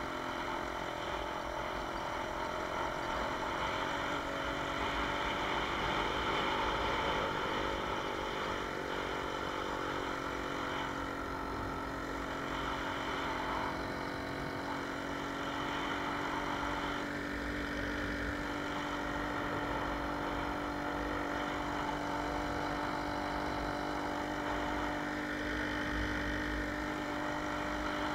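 Jawa 20 Pionýr moped's 50 cc single-cylinder two-stroke engine running at a steady cruising speed while riding, its pitch rising slightly in the first few seconds and then holding, with road and wind rumble underneath.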